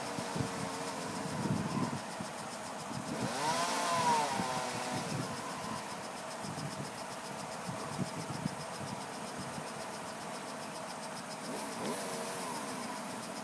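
Chainsaw engine running at idle, revved up and back down about three and a half seconds in and again near the end.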